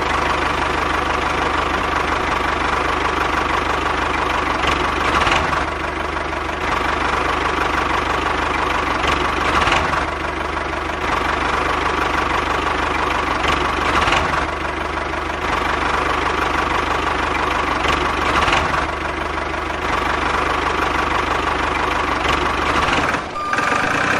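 Engine idling steadily with a knocking beat, swelling slightly about every four to five seconds, then cutting off suddenly about a second before the end.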